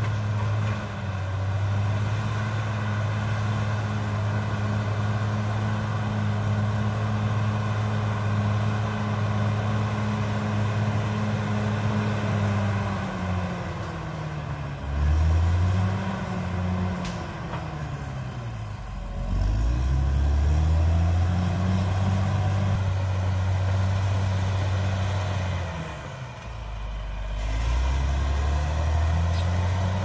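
CAT D6R XL bulldozer's diesel engine running hard as it pushes dirt. Its note sags and picks up again a few times as the blade loads and unloads, deepest about two-thirds through, with a thin high whistle coming and going.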